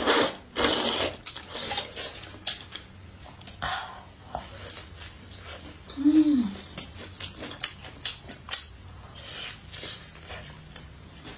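A loud slurp of luosifen rice noodles in the first second, then close-up eating of a sesame-topped Chinese hamburger bun: bites and chewing heard as many short sharp clicks and crackles.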